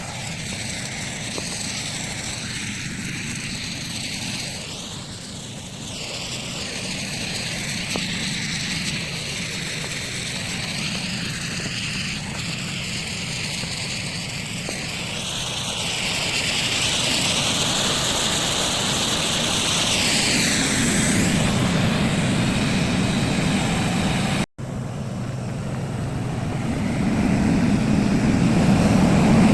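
Artificial snow machine running: a steady fan-like rush over a low drone, its higher tones slowly wavering, with a brief dropout about 24 seconds in.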